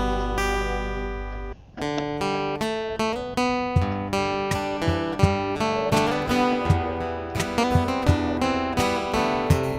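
Instrumental passage of a gospel song: a held chord dies away, then acoustic guitar picks a steady run of notes over a plucked bass line, without singing.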